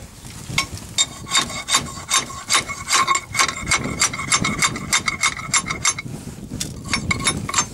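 Rapid metal-on-metal knocking, several blows a second, as a spanner is worked against the end cover of a T-150K tractor's hydraulic steering cylinder to knock it loose. A ringing metallic tone runs under the blows from about a second in until about six seconds in.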